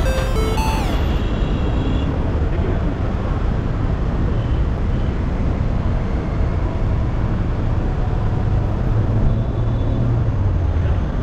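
Steady low rumble of a Skoda Rapid being driven, its road and engine noise, after the tail of a short electronic music jingle that ends about a second in.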